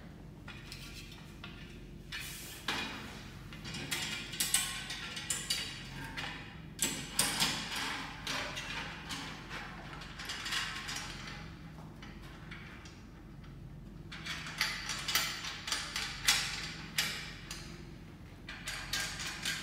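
Aluminium reagent-shelf frame being handled and fitted onto a lab bench: quick clusters of metal clicks, knocks and scraping rattles, in two spells with a lull between them.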